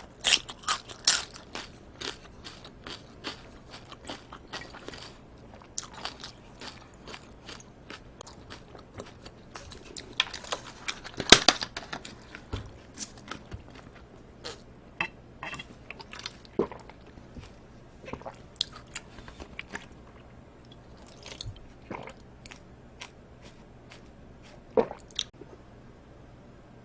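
Close-miked chewing and biting of live octopus and cold bibim noodles: wet clicks and crunches in a quick run at the start, then more spaced out, with one loud crunch about eleven seconds in.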